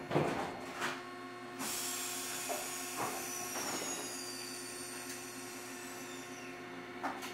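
Eizan Electric Railway Deo 700 series electric railcar standing in the station, its onboard equipment giving a steady hum. A hiss comes in about a second and a half in, with a few light knocks.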